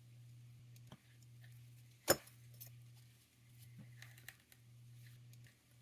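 Faint clicks of small hand tools against a watch movement's parts while the date mechanism is being taken apart: one sharp click about two seconds in and a few lighter ticks, over a steady low hum.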